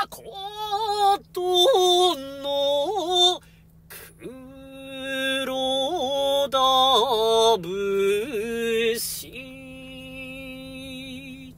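A man chanting shigin (classical Japanese sung poetry) solo, in a high voice. He holds long notes with slow wavering and small ornamental turns, breaks off briefly about four seconds in, and ends on a long held note.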